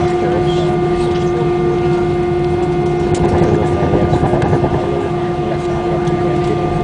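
Airbus A320 cabin noise while taxiing: the engines' steady drone at low thrust, with a constant hum over a low rumble.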